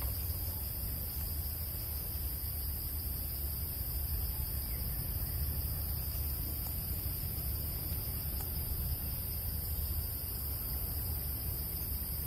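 A steady, high-pitched insect chorus that does not change, with a low rumble underneath.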